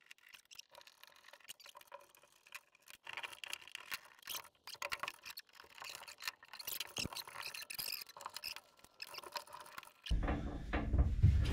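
A screwdriver working the screws out of a bus's metal floor panel: faint scraping, small metallic clicks and ticks, and tools and hands handling the metal. About ten seconds in, a much louder low rumbling noise starts suddenly.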